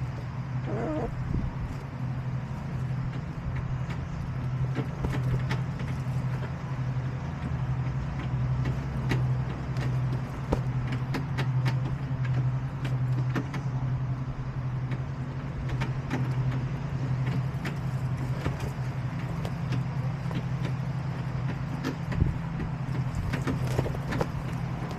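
A motor hums steadily and low, with scattered light clicks and taps over it.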